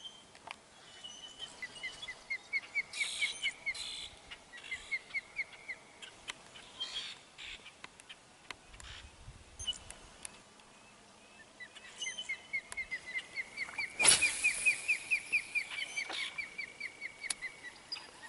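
Osprey calling: two runs of rapid, high whistled chirps, each lasting a few seconds, with the second starting about twelve seconds in. A single sharp knock about fourteen seconds in is the loudest sound.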